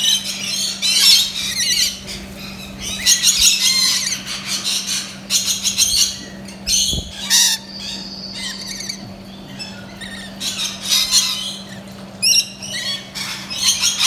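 Rainbow lorikeets screeching and chattering in repeated bursts of high, shrill calls.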